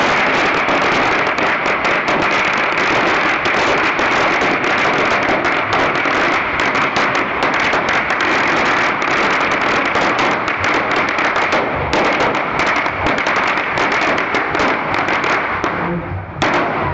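A long pagara, a Surinamese string of firecrackers, going off in a rapid, unbroken crackle of bangs that thins out and stops near the end.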